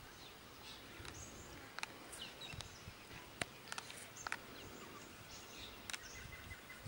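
Faint outdoor background with scattered short bird chirps and a few small sharp clicks.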